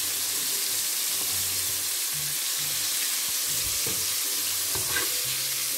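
Shrimp deep-frying in a wok of hot oil: a steady sizzle.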